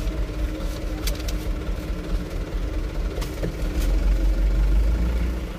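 Mitsubishi Canter truck's diesel engine running at idle, heard from inside the cab, its low rumble swelling louder about four seconds in. A few light clicks sound over it.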